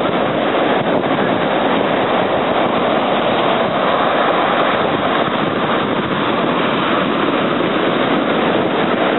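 Waves breaking in shallow surf, a steady rushing noise with no pauses.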